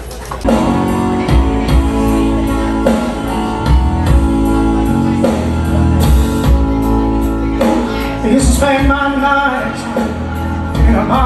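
Music with singing and a strong, steady bass beat, coming in loudly about half a second in.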